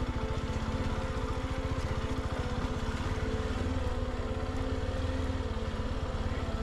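Honda XR150L's single-cylinder four-stroke engine running at a low, steady speed, its firing pulses close and even.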